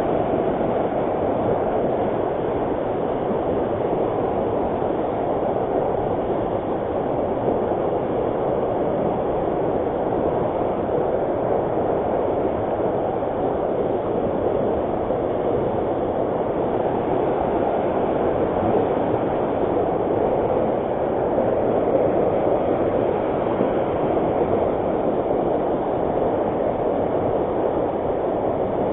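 Swift river water rushing steadily over rocks, a loud continuous roar of current.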